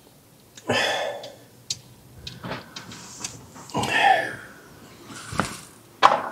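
Several separate metal knocks and scrapes as brake caliper parts and hand tools are handled. The loudest comes about three-quarters of a second in, with another longer scrape around four seconds in.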